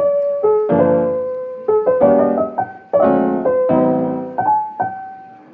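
Background music: piano playing a slow melody over chords, each note struck and left to ring away.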